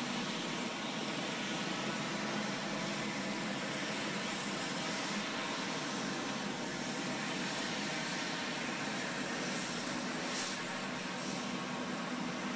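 Jet aircraft engines running steadily: a constant rush of noise with a thin high whine over it.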